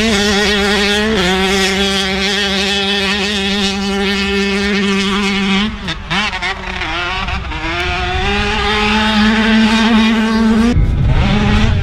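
2005 Honda CR125's single-cylinder two-stroke engine running hard at high revs with a steady high pitch. About six seconds in the revs drop and waver, then climb again, and near the end the sound changes abruptly.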